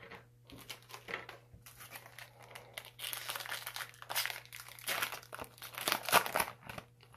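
Foil wrapper of a Yu-Gi-Oh! Extreme Force booster pack crinkling and being torn open by hand, a run of crackly rustles that grows louder about three seconds in and is loudest near the end.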